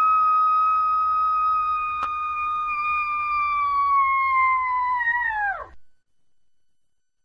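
One long, high, whistle-like sound-effect tone that holds steady, sags slightly in pitch, then drops away sharply and cuts off about five and a half seconds in. A brief click comes about two seconds in.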